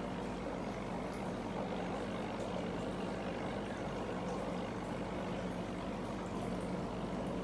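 Steady bubbling of an aquarium sponge filter's air stream, with faint ticks of bubbles breaking, over a low steady hum.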